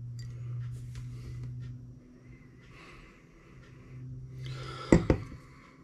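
A man sniffing a glass of beer to judge its aroma: several long breaths in through the nose, then a short sharp click about five seconds in. A steady low hum runs underneath.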